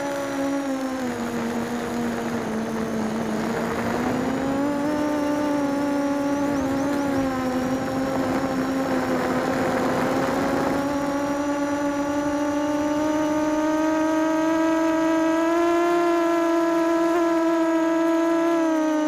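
FPV mini quadcopter's motors and propellers whining steadily. The pitch dips about two seconds in and climbs slowly later as the throttle changes, with patches of rushing air noise around four and ten seconds in.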